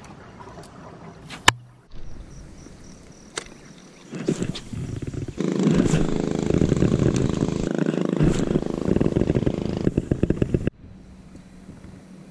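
Spinning fishing reel being cranked in after a cast: a loud, rough whirring from about five seconds in, lasting about five seconds and stopping abruptly. A single sharp click comes about a second and a half in.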